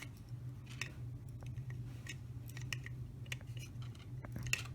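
Faint, scattered small clicks and scrapes of metal tweezers against the tiny brushes and brush holders of a model locomotive's pancake motor, over a low steady hum.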